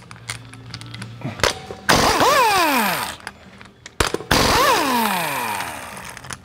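Impact wrench spinning the 19 mm lug nuts off a front wheel. Two long bursts, each whirring up and then sliding down in pitch over about a second and a half, with short clicks and knocks between them.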